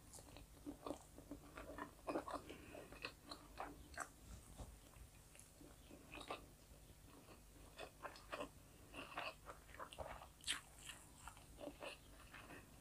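A person chewing food close to a clip-on microphone: faint, irregular small mouth clicks and smacks, one a little louder about ten and a half seconds in.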